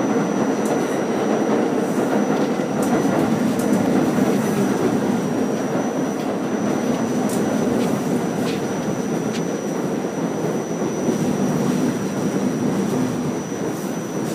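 Inside an R44 subway car running between stations: a steady rumble of wheels on rail, with a few sharp clicks from the track and a constant high-pitched whine.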